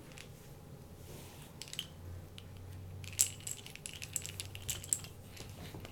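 Light clicking and rattling of small hard objects, mostly between about three and five seconds in, over a faint low hum.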